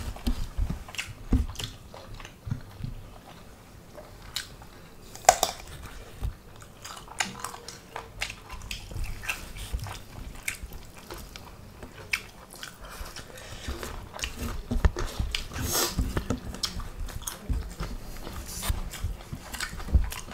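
Two people chewing and biting a hand-eaten meal of spicy pork and rice, with irregular crunches and clicks of eating.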